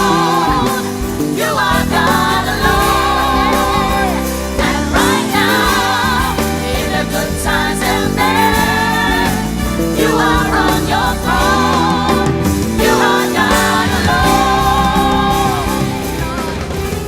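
Live gospel worship music: a singer with backing vocals sings phrased lines over a full band with sustained keyboard chords.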